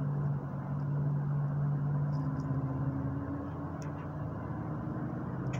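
Steady drone of a bus cruising at highway speed, heard from inside the cabin: a low engine hum over road and tyre rumble, with a couple of faint ticks in the second half.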